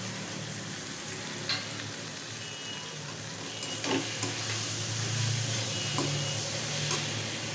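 Chopped tomatoes, onions and green chillies sizzling in hot oil in a metal wok, stirred with a steel spatula that scrapes and knocks against the pan a few times.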